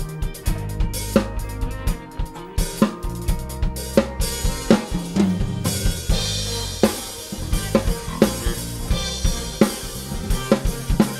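Acoustic drum kit played over a backing track: kick and snare hits at a steady groove over a sustained bass line, with cymbals washing in more strongly from about four seconds in.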